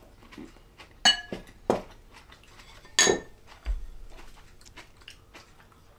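Chopsticks and ceramic dishes clinking at a dining table: a few sharp clinks with a short ring, about a second in and again near three seconds, with faint small taps of tableware in between.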